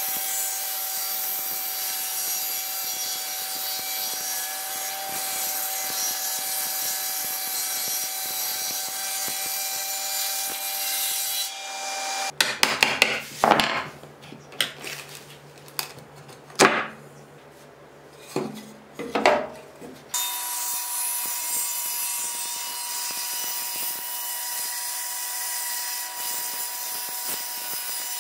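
Table saw running and cutting wood, a steady whine with the hiss of the blade in the stock, for the first eleven seconds or so. Then a stretch of scattered knocks and scrapes of hand work on a board, and from about twenty seconds in a table saw running and cutting again, a little higher in pitch.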